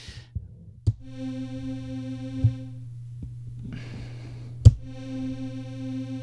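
Serum software synthesizer playing a sawtooth note twice over a steady low hum. Each note is held about two seconds and shaped by its attack-decay-sustain-release volume envelope. A sharp click comes at each key press and release; the loudest is just before the second note.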